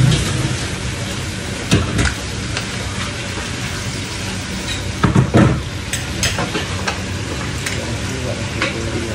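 Food sizzling in a frying pan on a gas stove, a steady hiss, with a metal spatula clinking and scraping against the pan as it is stirred; sharp knocks about two seconds in and again around five seconds in.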